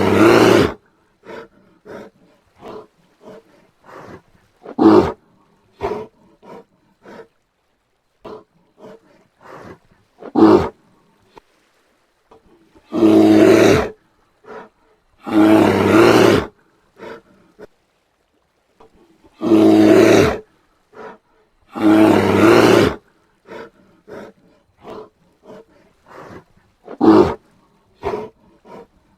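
Brown bear roaring again and again: about eight loud roars, each around a second long, with quieter short sounds in between.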